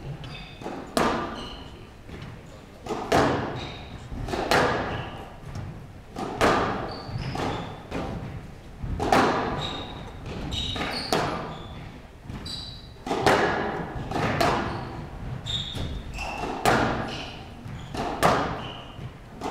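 Squash rally on a glass show court: the ball hit by the rackets and smacking the walls, a sharp hit about every second, each echoing in the hall. Short high shoe squeaks on the court floor come between the hits.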